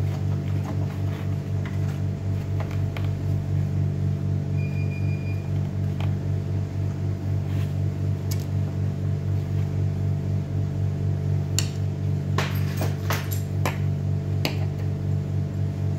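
Steady low hum of a running pump or motor, pulsing a few times a second, with a brief high beep about five seconds in and a run of light clicks and taps from hand work on the fittings near the end.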